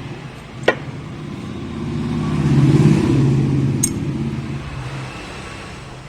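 A motor vehicle's engine swelling to a peak about three seconds in and fading away, like a vehicle driving past. Two short sharp clicks, about a second in and near four seconds.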